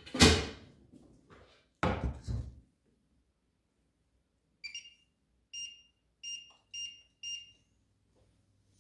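Two heavy knocks in the first couple of seconds, then five short, high electronic beeps from a kitchen appliance's control panel, a little over half a second apart.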